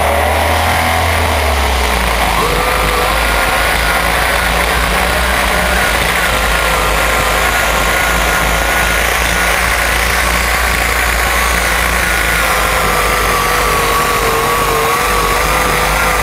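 Pro stock pulling tractor's turbocharged diesel engine running flat out under load through a pull, loud and steady, with a high whine that climbs about two seconds in and then wavers.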